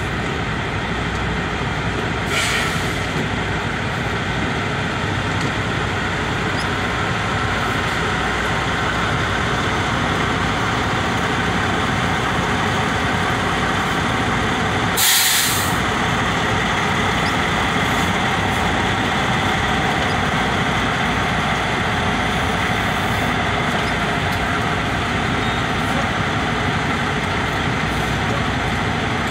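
Semi truck cab while driving: steady engine and road noise. Two short hisses cut through it, one about two seconds in and a louder one about halfway through.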